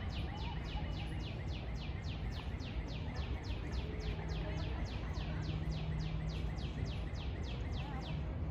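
A bird calling a high, downward-sweeping note over and over, about four times a second, in a steady unbroken run that stops near the end. Under it runs a steady low rumble of background noise.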